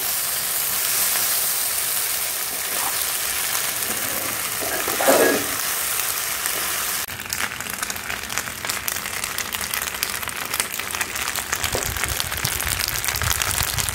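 Penne in red sauce sizzling in a pan on a wood-fired chulha as it is stirred with a wooden spatula. About seven seconds in the steady hiss gives way to a denser crackling and popping.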